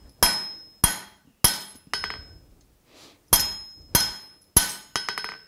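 Hand hammer forging a red-hot 3/4-inch steel bar on an anvil, about eight blows at roughly two a second with a short pause in the middle. Each blow rings with a high metallic tone. The blows are setting down the jaw of a pair of flat-jaw tongs.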